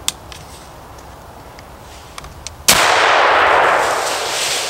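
Thompson/Center muzzleloader rifle fired once, about two and a half seconds in: a sharp blast followed by a long, loud echo that fades slowly.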